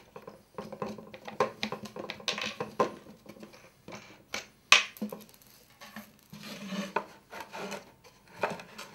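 Two plywood model railway baseboards being handled and unclipped at their join on a tiled floor: irregular wooden knocks, scrapes and small metal clicks, with one sharp knock about halfway through.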